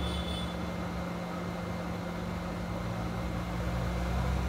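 Steady low motor hum with a soft hiss of moving air, unchanging throughout.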